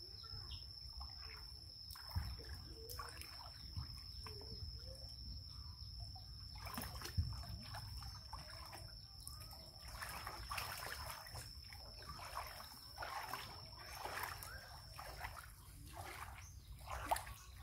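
Water splashing and sloshing in a large plastic tub as a young monkey swims in it and is splashed by hand, in irregular bursts that grow busier about halfway through.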